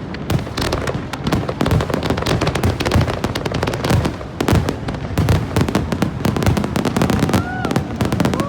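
Aerial fireworks going off in a rapid, continuous barrage of bangs, booms and crackles.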